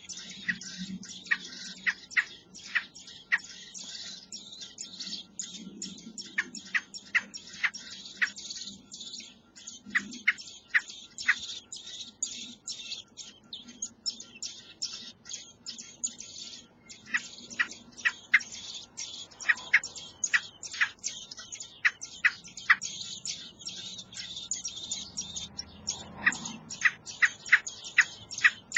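Common blackbird nestlings begging to be fed: a continuous stream of short, high-pitched cheeps, several a second.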